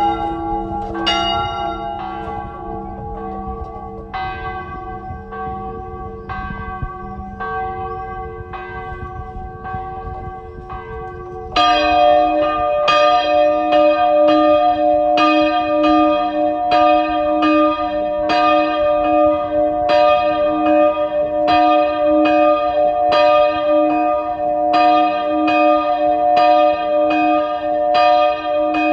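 Two swinging church bells, tuned E-flat and F and rung by hand, ringing for the Rosary. Slower, fading strikes give way about 11 seconds in to sudden louder, quicker ringing that continues.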